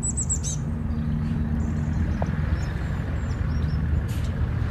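Engine of a vintage flat-front school bus running steadily as the bus drives by, a low, even hum.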